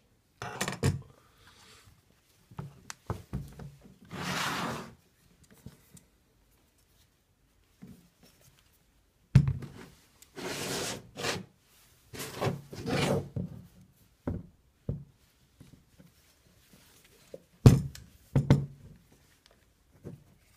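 Handling of a metal lathe height support and its fittings: scattered knocks and clunks of metal parts being set down and fitted together, with a few short stretches of scraping or sliding. The sharpest knocks come about nine and eighteen seconds in.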